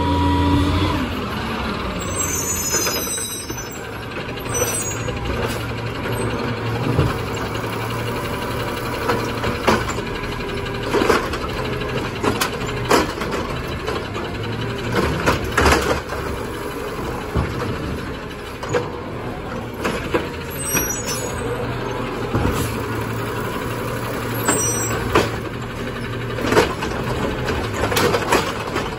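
Peterbilt 520 garbage truck slowing to a stop, its engine dropping in pitch, with a hiss of air brakes a couple of seconds in. It then idles steadily, with several short air hisses and scattered sharp knocks and clanks.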